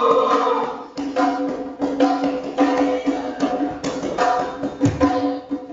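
Double-headed barrel drum played by hand in a quick, uneven run of strokes, with a deeper, heavier stroke near the end, over a steady held note.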